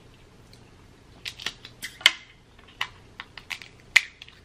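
Dungeness crab leg shell cracking and snapping as it is broken open by hand: a string of sharp cracks, the loudest about two seconds in and again near the end.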